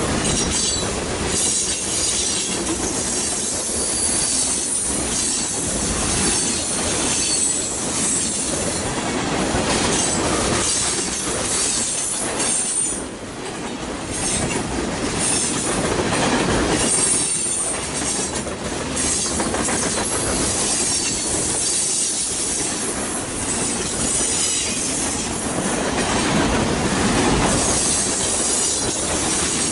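Freight train's boxcars and tank cars rolling past on steel wheels: a steady clatter of wheels on the rails, with one brief dip about halfway through.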